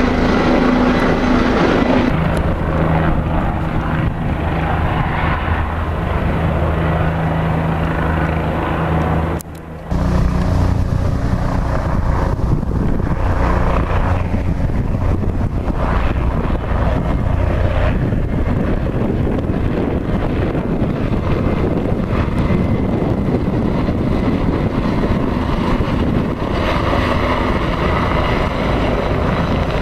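Turbine helicopters flying past: a steady, loud drone of rotor and engine. There is a short break about nine and a half seconds in, where the sound jumps to another helicopter.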